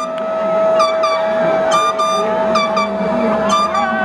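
High school concert band playing: a long held note sounds throughout while short accented brass notes strike and fade about once a second.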